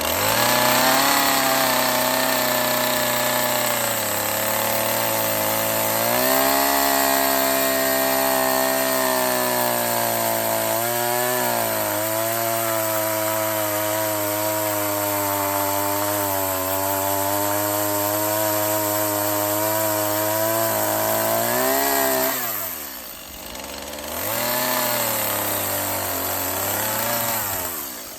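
Chainsaw running under load as it cuts a relief kerf down the back of a white pine carving, the slot that lets the wood dry without splitting. The engine pitch dips and recovers as the chain bites. About 22 seconds in it drops off briefly, then it runs again and stops near the end.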